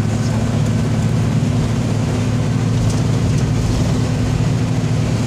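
Mitsubishi Fuso truck's diesel engine running steadily on the move, heard from inside the cab as a loud, even drone with road noise over it.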